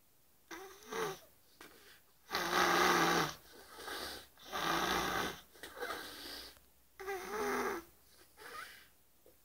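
A woman snoring in her sleep: a run of about seven snores on her breaths, each under a second long, the longest and loudest about two and a half seconds in.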